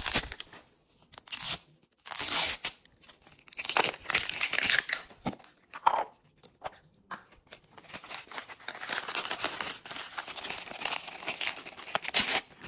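Plastic packaging of a Miniverse capsule ball being unwrapped: the label wrap peeled and torn off and a small plastic wrapper torn open and crinkled, in repeated irregular bursts of tearing and rustling. A short knock right at the start.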